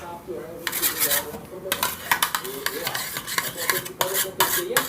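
Glue being stirred with a utensil in a small bowl: irregular scraping and clicking against the bowl as the disinfectant-and-salt activator makes the glue start to bind into slime.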